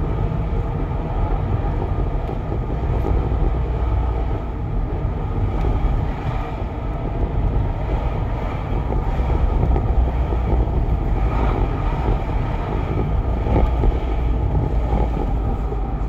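Peugeot 307 with the 1.6 engine driving slowly, heard from inside the cabin: a steady low rumble of engine and road noise. The car is being recorded for a strange whistle and grinding it makes while moving.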